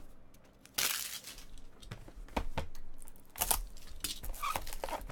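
Packaging on baseball card boxes and packs being torn open and crinkled while cards are handled, in several short rustling bursts.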